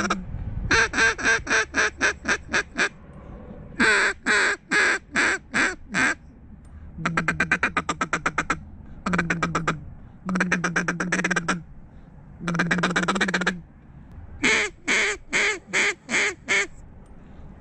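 Hand-blown duck call sounding loud, close runs of quacks: seven sequences of one to two seconds each with short pauses between, one of them a fast chattering run near the middle.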